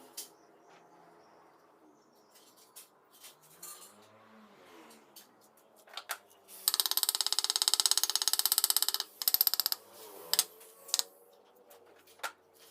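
Metal workshop sounds: scattered sharp metallic taps and clinks, with a rapid, even rattle of strikes lasting about two and a half seconds past the middle, then a shorter burst.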